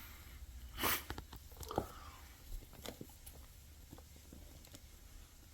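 Faint shuffling of a mother cat and her newborn ragdoll kittens stirring in their bedding: a short soft burst about a second in, a small click with a brief faint squeak near two seconds, then scattered light ticks.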